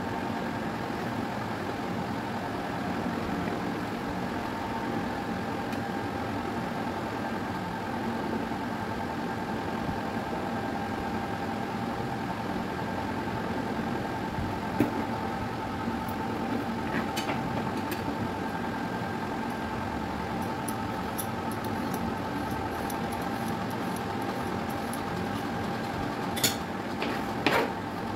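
Steady mechanical hum, with a few sharp taps of a kitchen knife on a cutting board as cucumber is cut. The loudest taps come in a short cluster near the end.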